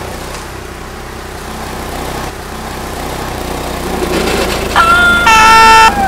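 Small gasoline engine of a wood chipper running with a steady low rumble. About five seconds in, a much louder, shrill sustained sound with a steady pitch cuts in, breaks off briefly, and starts again.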